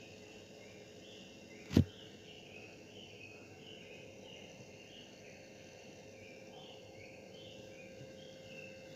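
One sharp knock about two seconds in, over a faint background of repeated high chirps and a steady low hum.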